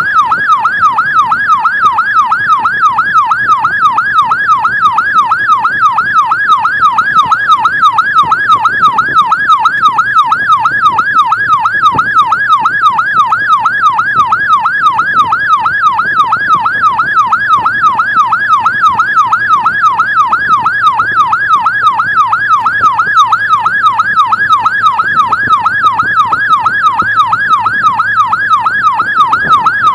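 Electronic emergency siren in a fast yelp, its pitch sweeping rapidly up and down several times a second without a break. A faint vehicle hum lies under it.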